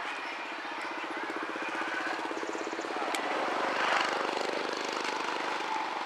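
A motor with a fast, even pulse passing by, growing louder to a peak about four seconds in and then fading.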